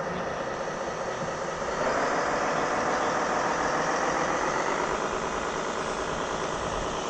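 Radio-controlled scale truck running with a simulated diesel engine sound, thin and without deep bass; it grows louder and revs up about two seconds in.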